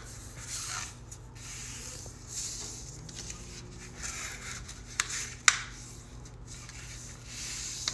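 Sheet of white paper being folded and creased by hand, its corners pressed in to the centre: papery rubbing and sliding against the desk as fingers smooth the folds, with two sharp clicks about five seconds in.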